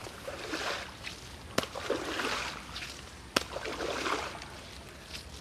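Water sloshing in about four swishing strokes as a coconut frond is swept through flooded pond water to draw floating coconuts in. Two sharp clicks fall between the strokes.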